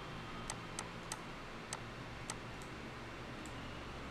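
About seven faint, sharp clicks spaced unevenly, from writing letters on a computer whiteboard, over a low steady room hum.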